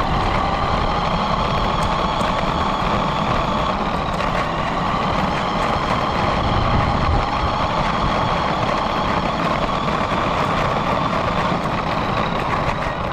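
Motor of a radio-controlled car whining steadily as it drives, over a low rumble, heard from a camera mounted on the car itself.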